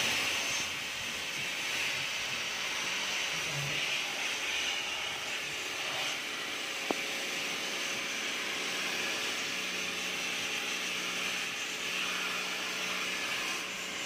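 Pressure water jet from a pump-fed spray wand hitting the plastic base of a top-loading washing machine tub, a steady hiss, with a single click about seven seconds in.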